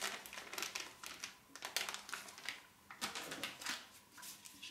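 Plastic packet of ground almonds crinkling and rustling in the hands as it is tipped and emptied, a string of short crackles.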